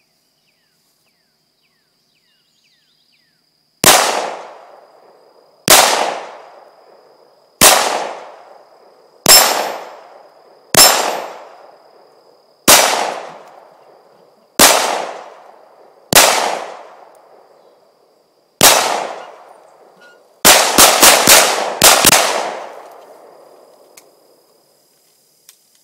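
Glock 19 9mm pistol firing outdoors: nine single shots spaced about two seconds apart, then a quick string of about seven shots near the end.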